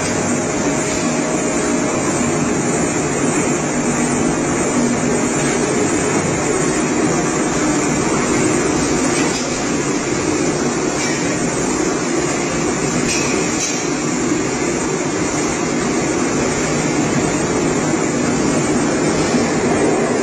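Electric blending tank's agitator motor and drive running with a steady mechanical hum and rush, a faint steady tone dropping out about six seconds in.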